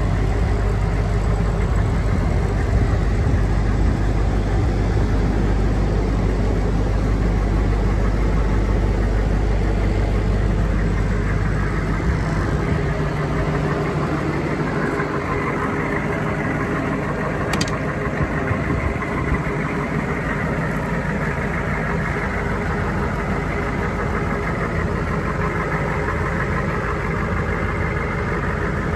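Humvee diesel V8 engine idling steadily, a low rumble that eases somewhat about twelve seconds in.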